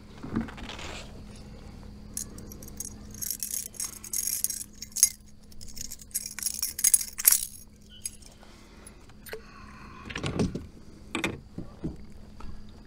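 Metal blade and wire frame of a buzzbait clinking and jingling in quick, irregular bursts as the lure is worked free of a pike's mouth by hand, with a few duller knocks near the end.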